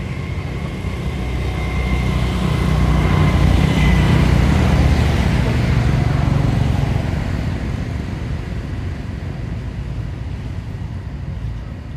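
A motor vehicle passing by: a low engine rumble that grows louder over the first few seconds, peaks near the middle and fades away after.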